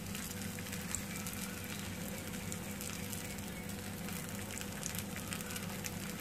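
Oil-fried adai batter sizzling steadily on a hot tawa, freshly spooned oil frying in its centre hole and around its edge.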